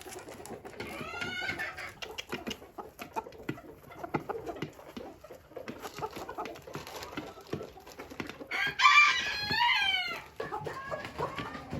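Chickens clucking and calling, with many small taps between the calls. A loud, drawn-out chicken call comes about nine seconds in and is the loudest sound.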